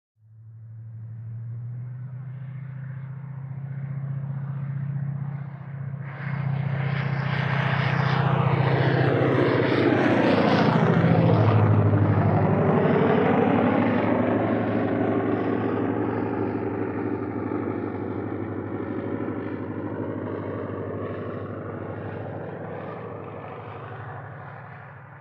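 Morane single-propeller airplane flying past: the engine drone fades in, grows loudest about eleven seconds in, drops in pitch as it passes, and fades away.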